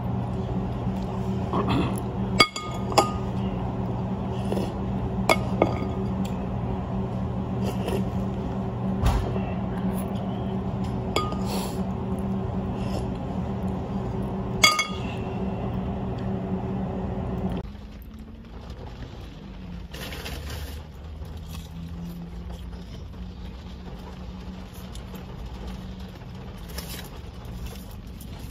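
Tableware clinking in a restaurant: several sharp clinks that ring briefly, over a steady hum. About two-thirds of the way through, the sound cuts to a quieter low rumble inside a car.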